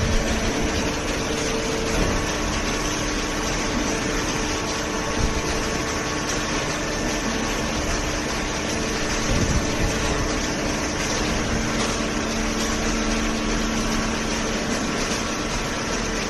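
Hydraulic baler's pump unit running steadily: a constant mechanical hum with a few held tones over a noisy whir.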